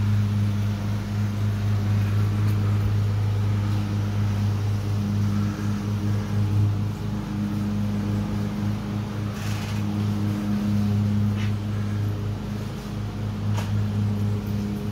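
Steady low machine hum, like a motor or fan running without a break, with a few faint ticks in the second half.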